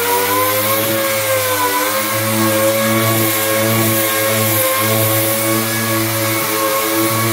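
Random orbital sander with 80-grit paper running steadily across a flat wooden door panel, a continuous motor whine whose pitch sags slightly about a second in, then holds.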